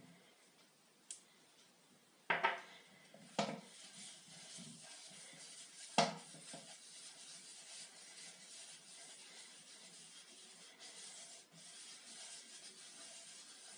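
Cloth wiping a linseed-oil finish into an end-grain wooden cutting board, a steady rubbing hiss from about four seconds in. Before it, a few sharp knocks as the glass jar of finish and the board are handled, the loudest about six seconds in.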